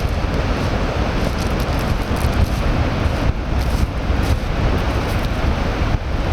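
Wind buffeting the microphone in a loud, steady rumble.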